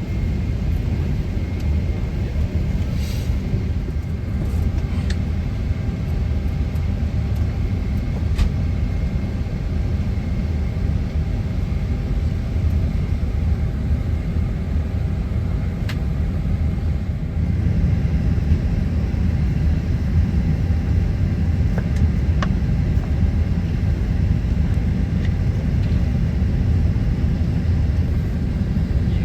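Steady low rumble of a vehicle heard from inside its cabin, with a few light clicks; it grows a little louder about two-thirds of the way through.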